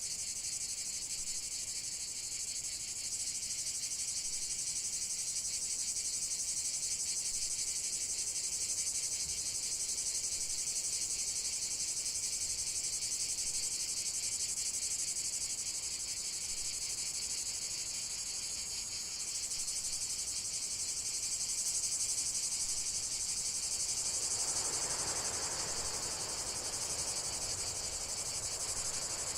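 Steady chorus of crickets: a dense, high-pitched, rapidly pulsing trill. A faint soft rushing noise joins in lower down near the end.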